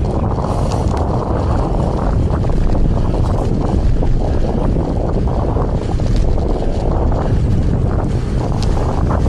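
Strong gusty wind buffeting the microphone of a camera on a moving bicycle: a loud, continuous low rumble.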